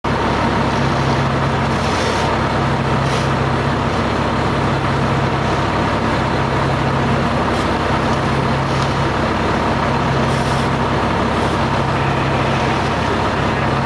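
Fire engine's diesel engine running steadily, a constant loud drone with a steady hum, with a few brief high hisses over it.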